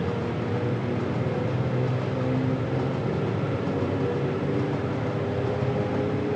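Express passenger train running, a steady noise with faint steady tones and no change in level.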